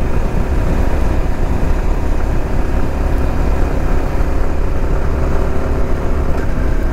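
Motorcycle riding at about 50 km/h: steady wind rumble on the GoPro microphone over the engine's even running note.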